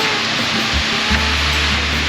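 Background music with a repeating low bass line over a steady hiss.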